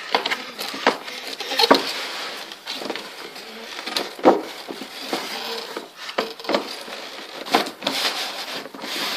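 Cardboard boxes being handled: the printed toy box is scraped and shifted against a cardboard shipping box, with rustling and irregular knocks. The sharpest knocks come near 2 and 4 seconds in.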